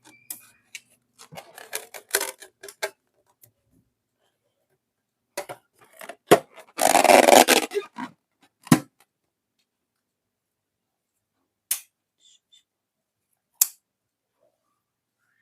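Close-up handling noises: a run of sharp clicks and crackles, then a noisy rush about a second long near the middle, followed by a few separate sharp snaps.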